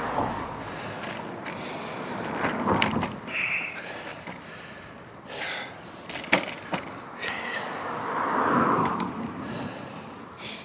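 Bicycle riding noise: a steady rush with sharp knocks and rattles from the bike over the road surface. About eight seconds in, a louder rush swells and fades.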